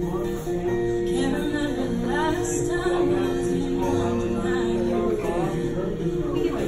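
A woman singing a song live at a microphone, accompanied by an acoustic guitar.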